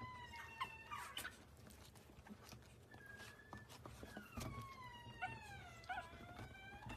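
Chihuahua puppy howling in thin, high whines. A long falling one comes at the start, a short one about three seconds in, and a long one from about four seconds in that falls and then rises again near the end.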